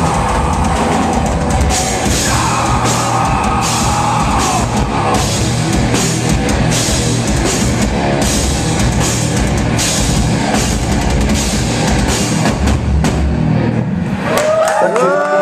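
Live rock band playing loud: electric guitar and drum kit with steady cymbal crashes. Near the end the band stops and a single held note rings on.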